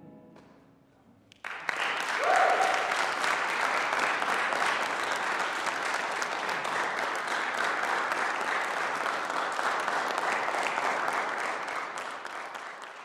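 The last notes of a jazz combo die away, and about a second and a half later an audience breaks into steady applause, with a brief cheer soon after it starts; the clapping begins to fade near the end.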